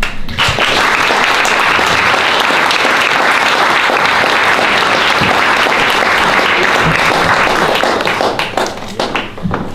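A room of guests applauding, a steady round of clapping that thins out to a few scattered claps near the end.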